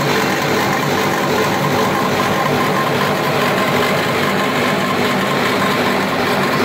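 Pillow-snack cutting machine and conveyor line running: a loud, steady mechanical din with a constant hum.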